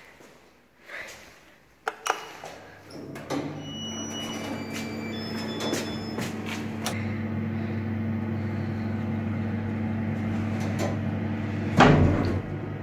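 Passenger elevator in use: clicks of the car buttons and a few short electronic beeps, then the steady hum of the elevator's drive as the car travels upward, with a loud knock near the end.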